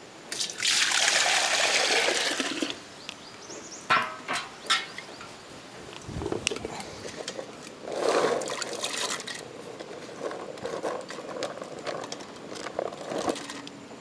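Water poured from a pot into a steel vessel for about two seconds, followed by two light knocks. About eight seconds in there is a second short rush of water as a handful of bird's eye chillies is tipped from a leaf plate into the water.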